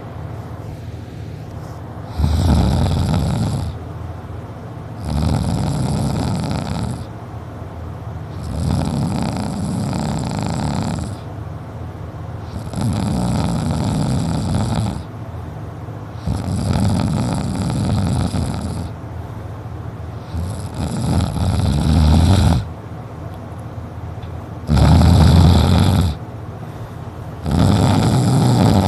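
A sleeping person snoring loudly, eight long snores, one every three to four seconds.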